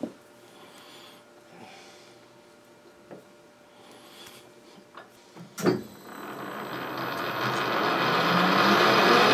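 Metal lathe switched on with a knock a little over halfway in, after a few light clicks; its motor and spindle then run with a high whine, growing steadily louder.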